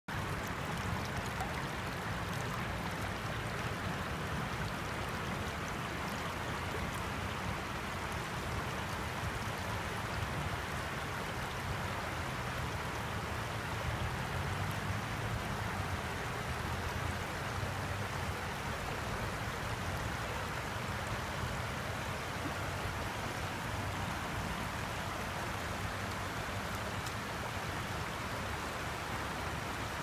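Shallow creek water flowing steadily over and around rocks, an even rush with no change.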